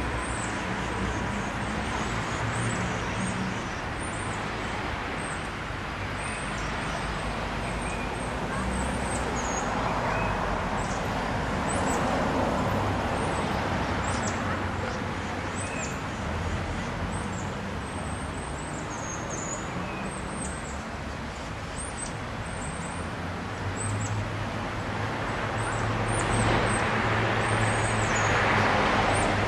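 Steady rumble of road traffic and a running engine, swelling near the end as a vehicle passes, with many short high bird chirps over it.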